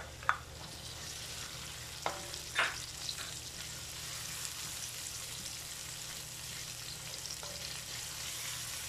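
Chopped red onion sizzling as it fries in hot oil with ginger and garlic in a stainless steel pan, stirred with a plastic spoon: a steady sizzle, with a few sharp knocks of the spoon or bowl against the pan in the first three seconds.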